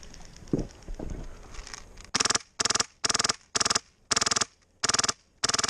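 HPA-powered airsoft RPK firing short full-auto bursts, each a rapid string of shots, about seven bursts in quick succession from about two seconds in. Before them come two dull knocks.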